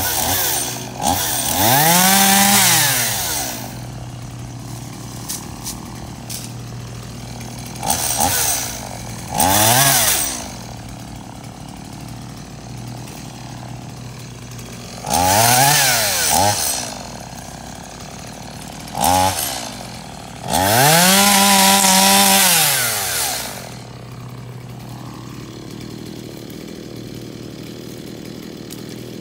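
STIHL two-stroke chainsaw idling and revved up to full throttle six times, each rev lasting from under a second to about three seconds with the pitch climbing and then dropping back, as it cuts through a bush's branches. It is left idling steadily for the last few seconds.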